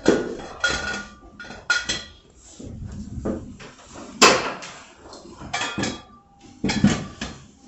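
Irregular knocks and clatter from construction materials being handled and bumped, some knocks followed by a brief ringing tone. The sharpest knock comes about four seconds in.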